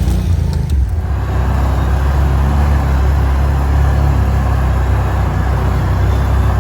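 Can-Am 6x6 ATV's V-twin engine running steadily under load, climbing a steep hill off-trail.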